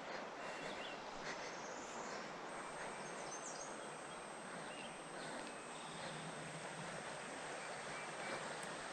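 River water running in a steady rush, with a few faint bird chirps over it.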